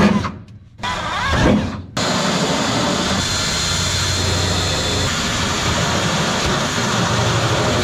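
Ryobi 18V cordless drill drilling through the aluminium sheet of an airplane's baggage floor. It runs in a few short bursts, then runs steadily for about six seconds.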